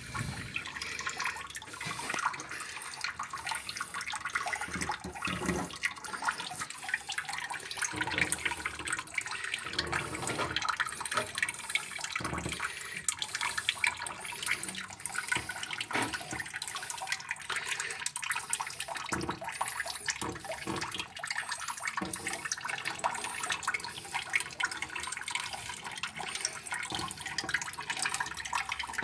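Water splashing and gurgling, continuous and irregular, as the dirty water in an asbestos-cement water tank is stirred and drawn off through a corrugated hose.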